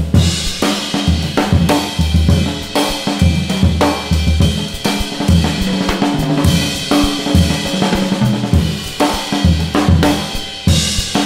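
Background music with a steady drum-kit beat of kick, snare and cymbals over a repeating bass line.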